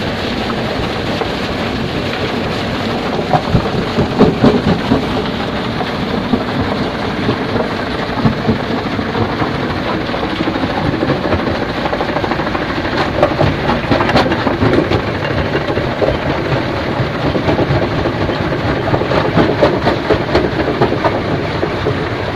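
Stone crusher working iron ore: a loud, steady rumble with rock clattering through it, and louder bursts of clatter about three to four seconds in, again around the middle, and near the end.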